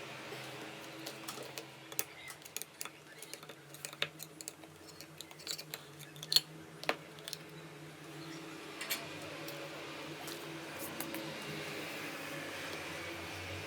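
Irregular light clicks and taps of small hard parts being handled, most of them in the first two-thirds and the sharpest about six seconds in, over a steady low hum.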